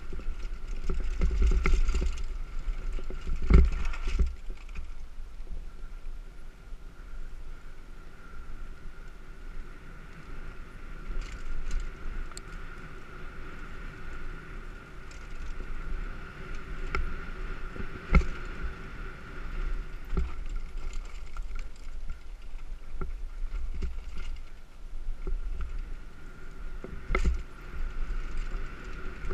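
Specialized Demo 8 downhill mountain bike riding down a rough dirt singletrack: rumble of the trail and wind on the microphone, rising and falling, with sharp knocks and rattles from bumps, the strongest about three and a half seconds and eighteen seconds in.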